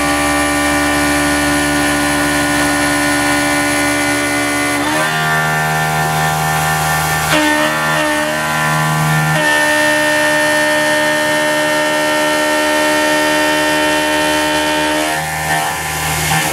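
CNC mill's 3/4-inch four-flute end mill face milling a metal block under coolant at about 5,000 rpm, taking close to an eighth of an inch per pass: a steady pitched cutting whine. Its tone shifts to a new pitch several times, about five, seven and a half, nine and a half and fifteen seconds in.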